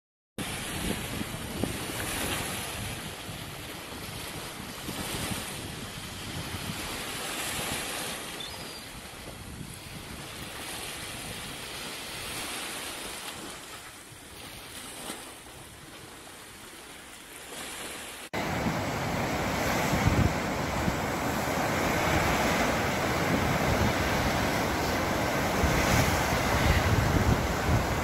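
Small waves washing onto a sandy shore, with wind noise on the microphone. About two-thirds of the way through, the sound cuts suddenly to a louder, windier stretch of surf.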